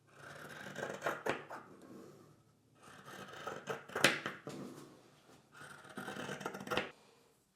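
Household handling noises in three bursts of rustling and scraping, each with a few sharp clicks.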